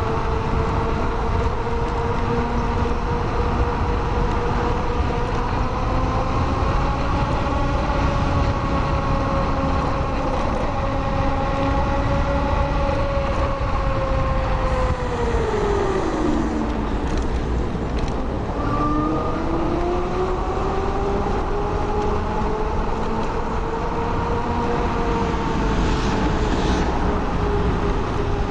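Blade 10 electric scooter being ridden: its motor whine holds steady, drops sharply in pitch about fifteen seconds in as it slows, then rises again as it speeds back up. Tyre and wind rumble run underneath.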